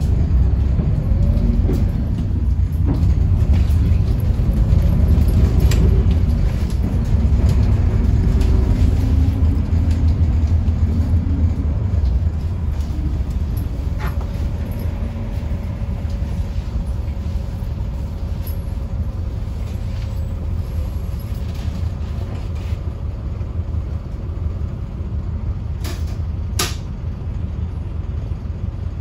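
Inside a moving city bus: a heavy low rumble of engine and road, with the engine note rising as the bus gathers speed over the first ten seconds or so, then running steadier with a faint steady whine. Two sharp clicks come near the end.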